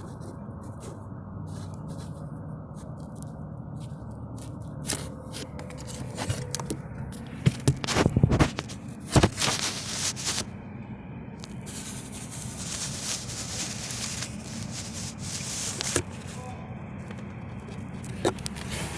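Air conditioner running with a steady low hum, the unit reported as making a loud noise while running. Scrapes and knocks come and go over it, loudest about eight to ten seconds in, with a hiss for a few seconds after that.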